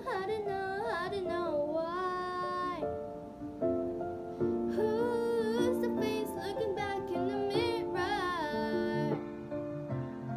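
A girl singing long, gliding vocal lines with no clear words over a pop backing track, her voice wavering and sliding between notes, with a short break about three seconds in.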